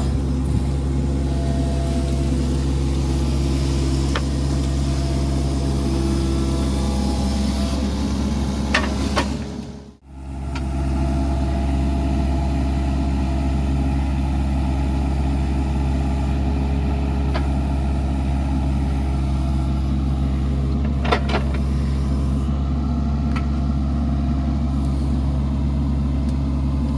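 A large engine running steadily at a constant speed, with a low, even hum; the sound cuts out for a moment about ten seconds in and then carries on the same.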